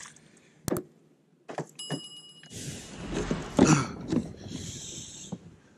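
Lake water splashing and sloshing beside a plastic fishing kayak as a hand dips into the cold water, with louder splashes about three and a half and four seconds in. Before it come a few light clicks and a short high beep about two seconds in.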